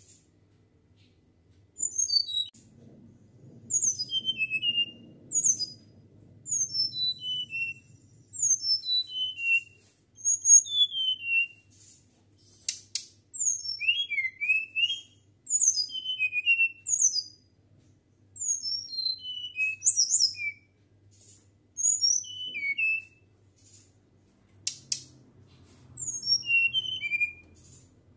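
Caged flycatcher (sikatan) singing a flute-like song: short phrases of high, clear whistled notes, each falling in pitch, repeated every second or two with brief pauses between them.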